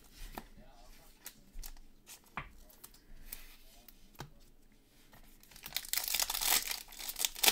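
Trading cards handled with scattered light clicks and taps, then a foil trading-card pack torn open and crinkled from about five and a half seconds in, the loudest part.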